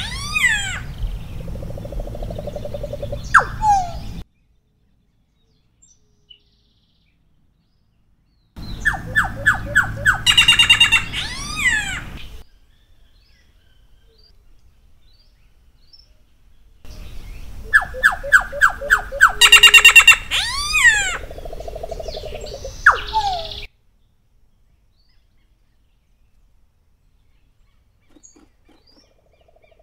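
Solitary black cacique (iraúna-de-bico-branco) singing in three bouts: fast runs of clipped notes and whistles sliding down in pitch, with a lower, hoarser note in some bouts. The first bout ends about four seconds in; the next two start about nine and seventeen seconds in, with several seconds of quiet between them.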